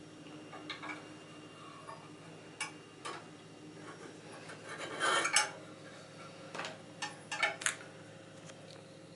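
Scattered clinks and knocks of hard metal and stone objects being handled and set down. The loudest clatter comes about five seconds in, and a quick run of clinks follows near the end. This is in keeping with a sharpening stone and the metal parts of a sharpening jig being picked up and placed.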